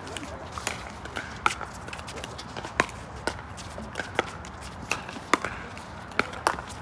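Pickleball rally: paddles striking the hollow plastic ball with sharp pops, about nine hits at uneven intervals of roughly half a second to a second.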